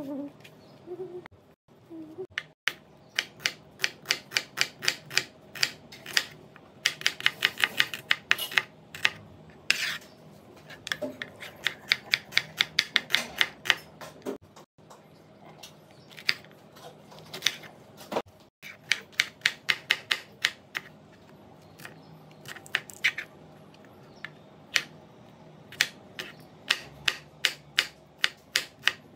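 Kitchen knife chopping onion and green capsicum on a wooden chopping board: quick runs of sharp taps, several a second, broken by short pauses.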